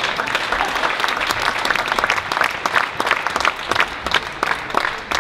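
Crowd of spectators applauding, many hands clapping at once.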